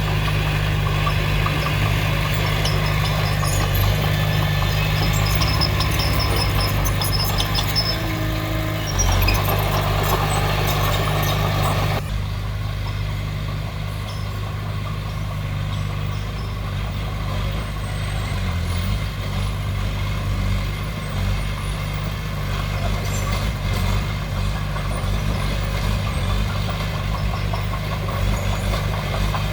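Diesel earthmoving machinery running steadily, with metallic squealing and clanking over the first dozen seconds. After that the sound changes abruptly to the engine alone, with fewer squeals.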